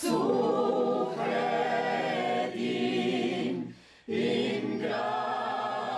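A small mixed group of men's and women's voices singing an old traditional church melody unaccompanied, with long held notes. The singing breaks off for a breath a little after three and a half seconds in, then starts again.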